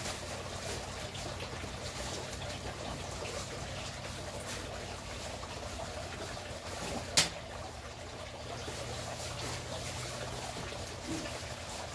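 Steady trickle of water from a tiered garden fountain over a low steady hum, with one sharp click about seven seconds in.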